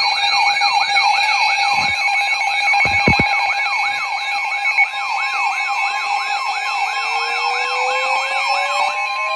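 Electronic siren wailing in quick repeated pitch sweeps, about three a second, over steady alarm tones. About halfway through, another tone begins and slowly rises. The sweeping stops just before the end.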